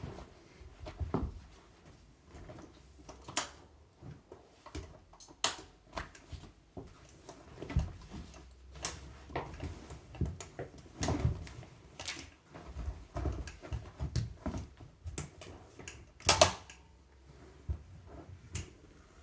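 Irregular clicks, clacks and knocks of small hard parts and tools being handled, with a sharper knock about 16 seconds in.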